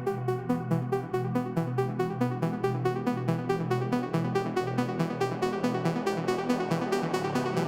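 Electronic instrumental music with a fast, steady synth pulse, played through AUNE AR5000 open headphones and picked up by microphones at the earcups, with little deep bass.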